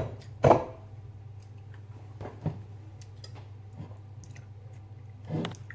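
Kitchen handling sounds during food preparation: a few separate knocks and clicks of utensils and containers, the loudest about half a second in, over a steady low hum.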